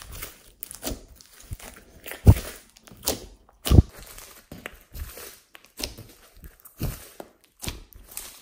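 Hands squeezing and stretching a large mass of glossy slime: irregular sticky squelches, crackles and pops. Two pops stand out as louder, a little after two seconds and near four seconds in.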